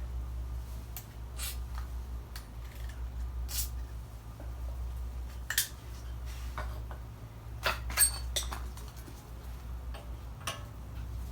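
Metal hand tools clinking and being handled: a dozen or so short sharp clicks and brief hissy strokes at irregular intervals, over a steady low hum.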